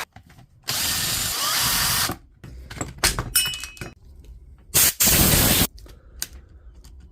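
Makita BHP452 cordless drill's brushed motor run twice in bursts of about a second, with clicks and rattles between. The motor is faulty, and the drill is weak enough that the chuck can be held by hand while it runs.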